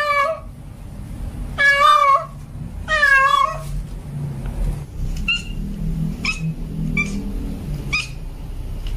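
Tomcat in heat yowling to call a female: three loud, wavering drawn-out calls in the first four seconds, then four short, fainter calls, over a steady low hum.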